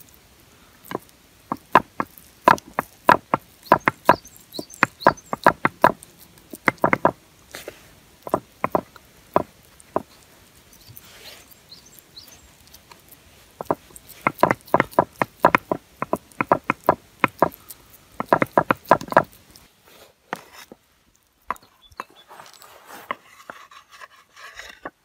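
Hands slapping and patting a ball of raw ground beef into a burger patty, with quick runs of sharp slaps several a second, broken by short pauses.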